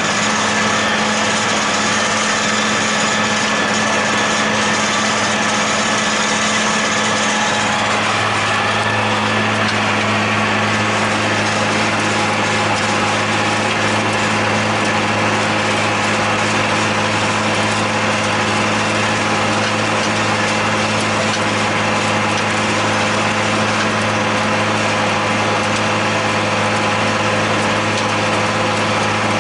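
John Deere 8100 tractor's six-cylinder diesel running steadily while pulling a John Deere 946 discbine mowing hay, a constant engine hum. The high hiss eases about eight seconds in.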